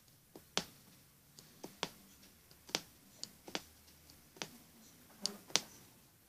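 Punch needle (aguja mágica) stabbing through taut embroidery fabric stitch by stitch: a series of short, sharp clicks at uneven spacing, about two a second.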